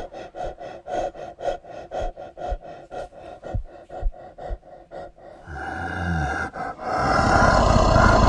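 An even pulsing sound, about four beats a second, gives way about five seconds in to a loud, sustained roar-like noise that swells further near the end.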